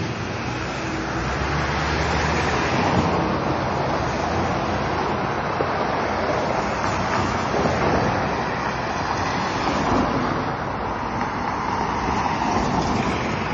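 City street traffic noise: a steady rush of cars driving past, picked up by a Samsung Galaxy S II phone's built-in microphone.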